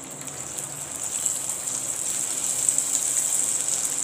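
Batter-coated cauliflower florets dropped by the handful into hot frying oil, sizzling and crackling. The sizzle grows louder as more pieces go in.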